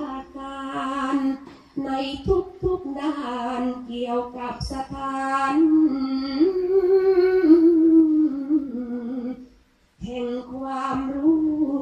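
A woman chanting a su khwan soul-calling blessing as a slow, sung melody with long held notes that glide between pitches. She breaks off briefly near the end.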